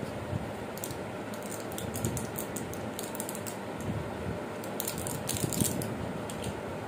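Irregular small, sharp clicks and crackles, coming in a few quick runs, from hands opening vitamin E capsules to add to a hair mask.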